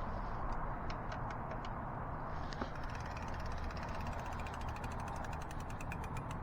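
An e-bike wheel spinning freely on its hub, its freewheel clicking in a rapid run of ticks from about two and a half seconds in, after a few scattered clicks. The freshly adjusted brake is rubbing a little on the inside pad.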